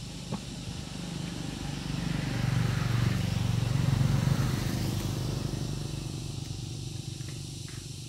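A motor vehicle passing close by: its engine grows louder to a peak about halfway through, then fades away.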